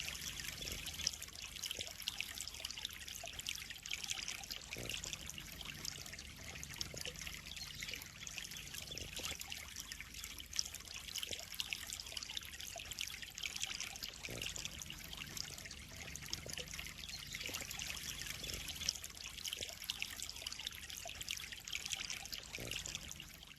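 Water trickling and splashing steadily into a koi pond, with a few brief louder splashes now and then.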